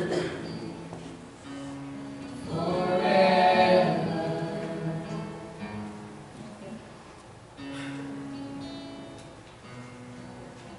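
Worship band playing: a group of voices sings over acoustic guitar, loudest in a phrase about three seconds in, with quieter held chords and a shorter sung phrase near the end.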